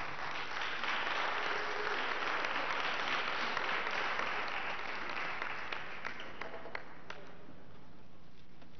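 Audience applauding a performer's introduction. The clapping fades out over about six seconds, with a few last scattered claps near the end.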